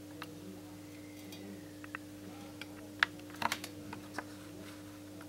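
A few light clicks and taps from handling metal TV parts on the bench, with a small cluster about three and a half seconds in, over a steady low electrical hum.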